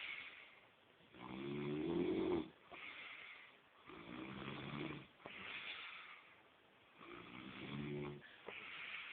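A man snoring in his sleep: three pitched, buzzing snores about three seconds apart, with a breathy hiss between them.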